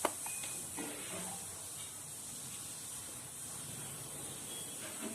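Steady high hiss of background noise, with a single click at the start and a brief faint high tone just after; no alarm beeping is heard.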